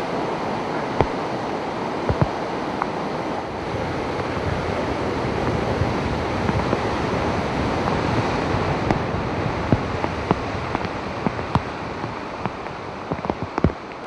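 Floodwater rushing in a fast, churning torrent: a steady loud wash of water noise. Scattered sharp clicks and knocks come through it, more often in the last few seconds.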